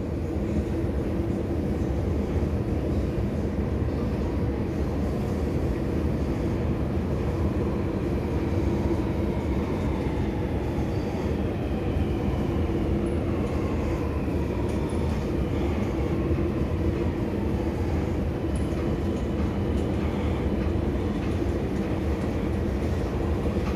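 Escalator running steadily on a long descent into an underground metro station, a continuous mechanical rumble and hum. A faint whine falls in pitch about halfway through.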